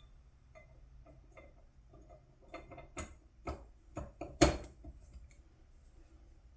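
Small metal clicks and knocks from the internal parts of a Craftsman half-inch ratchet being handled during reassembly: faint ticks at first, then a run of sharper clicks from about halfway, with the loudest knock near the end.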